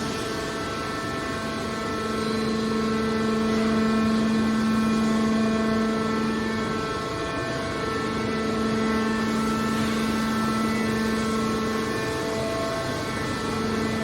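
Hydraulic power unit of a metal baler running with a steady hum, its tone briefly breaking about seven seconds in.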